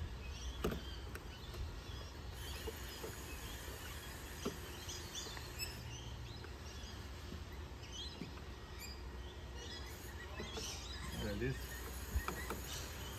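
Birds chirping now and then over a steady low outdoor rumble, with a few light clicks and rustles from hands working the gate latch parts at the top of a PVC post.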